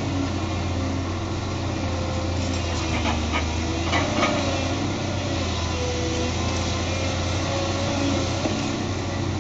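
Case CX240 excavator's diesel engine running steadily with a wavering whine while its hydraulic demolition jaw attachment works a pile of broken concrete. A few sharp cracks and crunches come about three to four seconds in.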